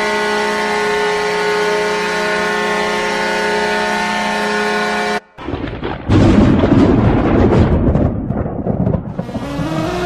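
Ice-hockey arena goal horn blowing a steady multi-note chord for about five seconds, then cutting off abruptly. After a brief gap a loud rumbling burst runs for about three seconds, and the goal song starts near the end.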